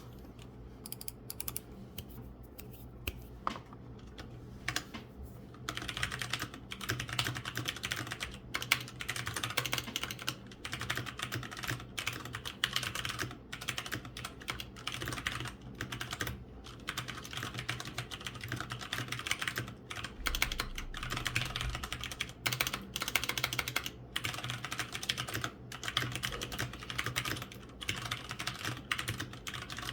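Typing on an Aula F2088 mechanical keyboard fitted with Cherry MX Ergo Clear tactile switches and cheap Redragon keycaps: a few scattered keystrokes at first, then continuous fast typing from about six seconds in.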